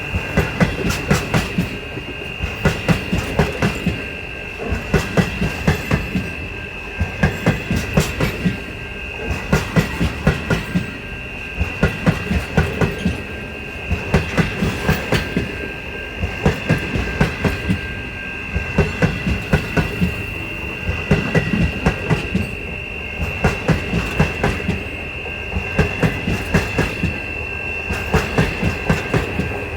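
Train wagons rolling past, their wheels clattering over rail joints in groups of clacks about every two seconds. A steady high tone runs underneath.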